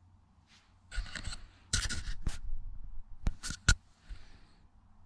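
Close scratching and rubbing sounds, with a few sharp clicks a little over three seconds in.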